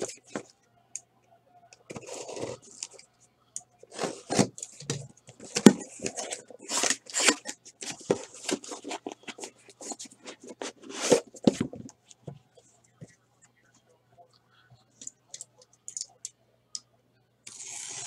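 Taped cardboard case being opened by hand: packing tape cut and torn, flaps pulled back, cardboard scraping and rustling in a quick run of noisy strokes. Near the end only a few light handling taps.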